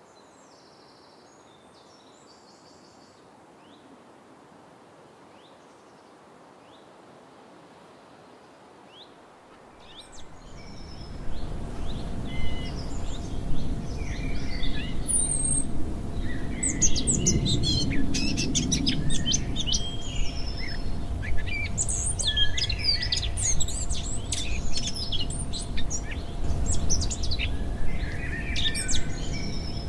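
Several birds chirping and twittering outdoors, faint at first, then much louder from about ten seconds in, over a low rumble and a faint steady hum.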